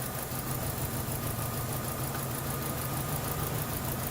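2012 Chevrolet Cruze engine running at a steady rough idle with a misfiring cylinder, a fine regular ticking over the hum.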